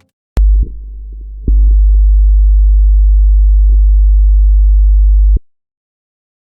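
A 50 Hz power-system waveform from a protection relay's fault recording, played back as sound: a loud, deep hum with a stack of overtones. It starts suddenly, drops much quieter for nearly a second, jumps back to full strength at about a second and a half, and cuts off abruptly near the end.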